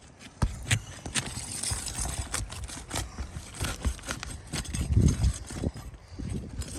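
Irregular sharp knocks, taps and scrapes on an asphalt shingle roof, with one heavier thump about five seconds in.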